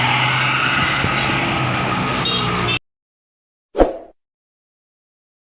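A bus engine running with traffic noise cuts off suddenly about three seconds in. About a second later comes one short thump.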